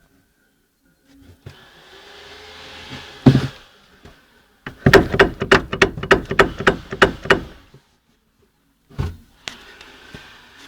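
Knocking from the front wheel of a Citroën BX: one loud knock, then a quick run of sharp knocks, about five a second for nearly three seconds, and two more single knocks near the end. This is the fault knock in the front wheel.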